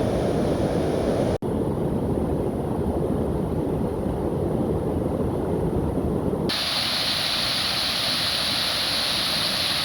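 Waterfall rushing: a steady, deep, low-heavy rush that changes about six and a half seconds in to a brighter, hissier rush of falling water, with a momentary gap about a second and a half in.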